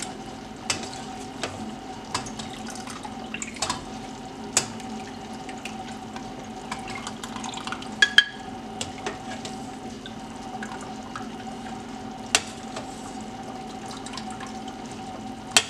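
Soaked chiles spooned with a plastic ladle from a steel pot into a glass blender jar: scattered clinks and knocks of the ladle against the pot and jar, with the wet drip of the soaking liquid, over a steady low hum.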